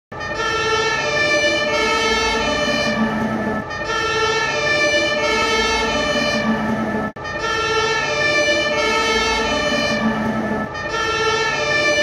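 German fire engine's two-tone siren (Martinshorn) sounding, switching back and forth between a high and a low tone roughly every two-thirds of a second. It cuts out for an instant about seven seconds in and starts again.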